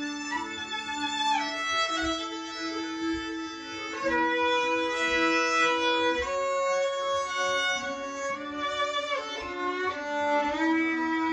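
Violin played over loop-pedal layers of itself: a held low note sounds under a slow bowed melody that changes every second or two, with slides between some of the notes.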